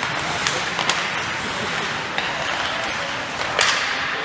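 Ice hockey scrimmage on an indoor rink: a steady hiss of skates on the ice with a few scattered sharp clacks of sticks and puck, the loudest about three and a half seconds in.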